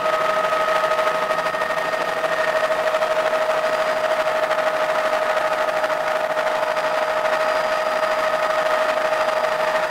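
Helicopter in flight, heard from inside the cabin: a steady high engine whine over a fast, even beat from the rotor.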